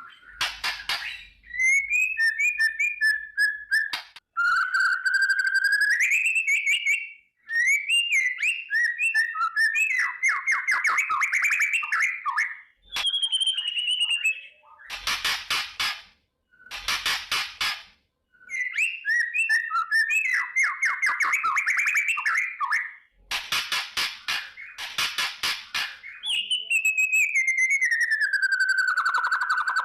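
White-rumped shama (murai batu) singing: clear whistled phrases that slide and warble, alternating with harsh, fast rattling bursts ('kretekan'). Several rattles come in short runs, and a long whistle falls in pitch near the end.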